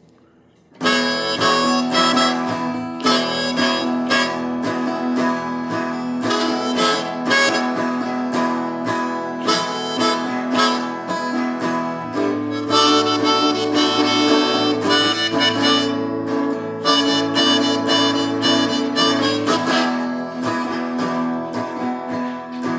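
Instrumental blues intro: a blues harmonica playing melody lines over guitar accompaniment, starting just under a second in.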